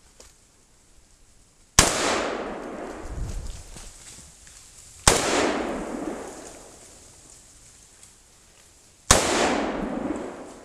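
Three gunshots from the hunter's own gun, close to the microphone, fired at a wild boar. They come about three to four seconds apart, and each rings out and fades over about two seconds.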